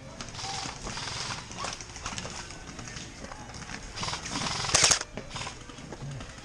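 Footsteps of a player crunching along on the move, with a quick loud rattle of sharp clicks about three quarters of the way through.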